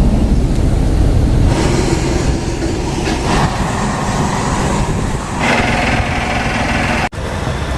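Steady vehicle engine noise, with a change in its character about a second and a half in and a brief dropout near the end.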